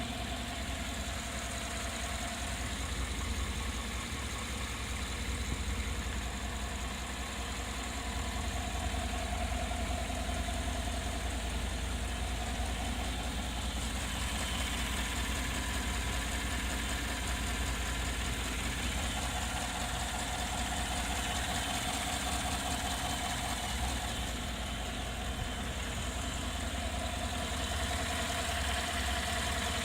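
Vehicle engine idling steadily with the hood open, with a faint thin tone that fades in and out several times; this is the weird noise the owner is trying to capture.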